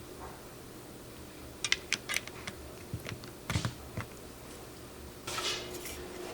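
Clicks and taps from a Glorious GMMK Pro mechanical keyboard being assembled: a few irregular clicks in two small clusters, then a short scraping rustle near the end.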